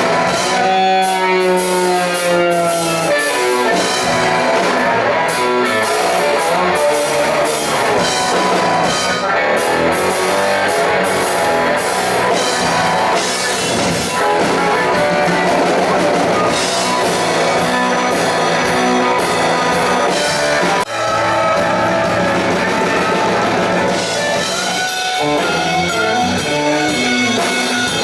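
Rock band playing live, electric guitars over a drum kit, with a brief break in the sound about three-quarters of the way through.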